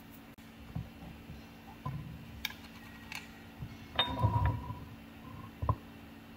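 Kitchen handling sounds on a stone countertop: a few light knocks, then a louder ringing clink about four seconds in as a glass jar and a small stoneware bowl are picked up and the jar is opened, and another sharp knock near the end. A faint steady hum runs underneath.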